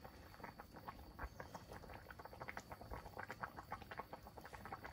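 Faint, quick, irregular popping and ticking from a large wok of curry simmering.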